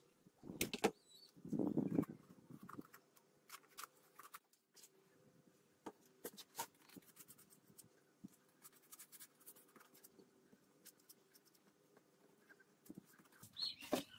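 Faint, scattered clicks and taps of hands handling cardboard and a paintbrush, over a faint steady hum. Two louder low, muffled sounds come in the first two seconds.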